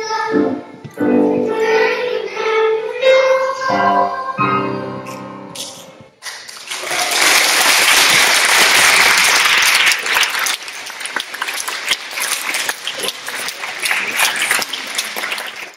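A children's choir sings the last phrases of a song, stopping about six seconds in. Audience applause then takes over, loudest just after it starts and going on until the end.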